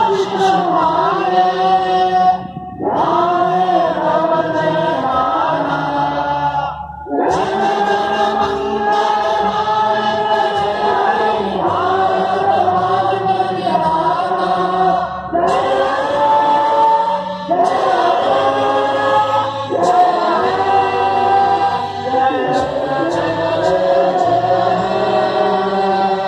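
A choir singing a slow, melodic song in long held phrases, with short breaks between phrases, over a steady low instrumental backing.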